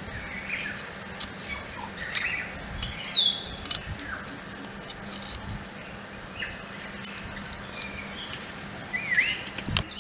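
Birds chirping in short rising and falling calls, with scattered clicks and scrapes of a machete blade peeling a raw purple yam.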